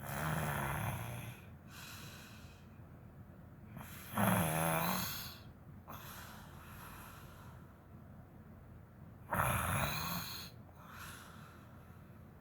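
A woman snoring in her sleep: three loud snores, about four to five seconds apart, each followed by a softer breath.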